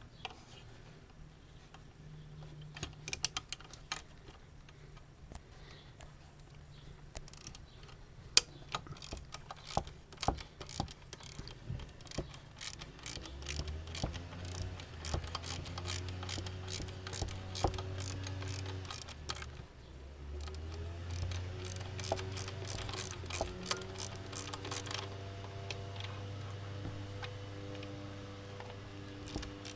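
Hand tools clicking and knocking in irregular runs, like a ratchet wrench being worked on bolts in an engine bay. A low steady hum joins about halfway through.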